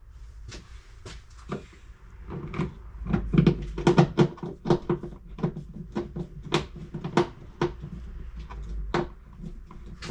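Screws being driven back into the Freelander 2's plastic tailgate trim with a hand screwdriver, with the trim being handled: a run of irregular small clicks and knocks, thickest about three to five seconds in.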